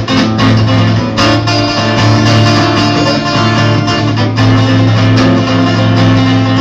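Acoustic guitar strummed loudly and continuously, an instrumental passage with no singing.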